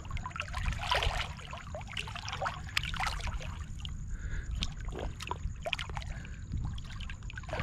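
Shallow water splashing and sloshing around a snook held by its lower jaw, as the fish is worked back and forth in the water to revive it before release. The splashes come irregularly, with the biggest about a second in and around three seconds.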